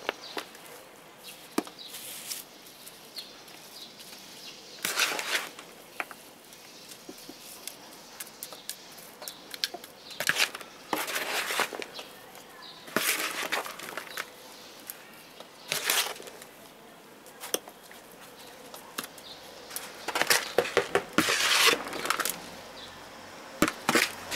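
Small hand trowel scooping loose potting soil out of a plastic basin and spreading it over a planter: short scraping, rustling bursts every second or few, with pauses between scoops.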